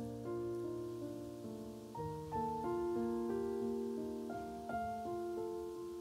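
Background piano music: a slow, gentle melody of held notes over a sustained bass.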